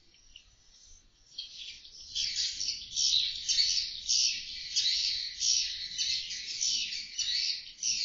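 Edible-nest swiftlets roosting together, chattering in a dense chorus of high chirps that grows louder and busier about two seconds in.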